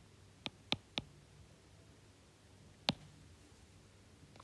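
A few small, sharp clicks over faint room tone: three in quick succession in the first second, then a single louder one near three seconds in.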